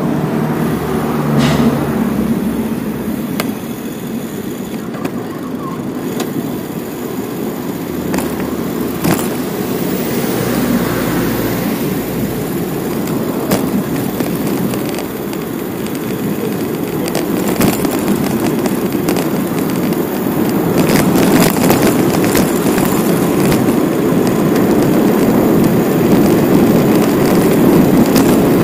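Steady road and wind rumble from riding a bicycle through city streets, with scattered clicks and rattles, getting louder in the last third.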